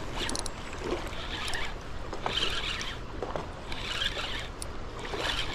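Fishing reel being cranked while a hooked striped bass is fought in: a rhythmic whirring swish about once every second, with a few light clicks and a steady low rumble underneath.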